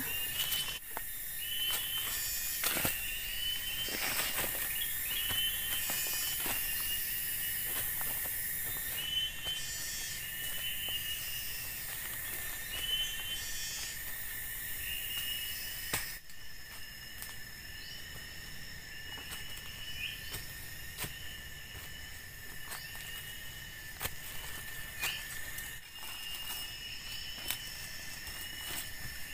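Tropical forest ambience: insects keep up a steady high-pitched trilling with repeated short chirps, while footsteps rustle through dry leaf litter. About halfway through the insect chorus shifts and the footstep noises thin out.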